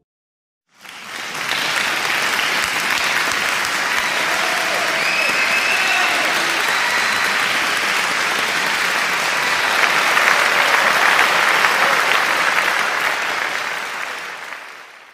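Crowd applause that starts suddenly about a second in, holds steady and fades out near the end.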